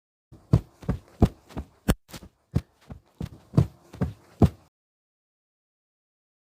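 Footsteps added as a sound effect: about a dozen steps over some four seconds, roughly three a second, then they stop.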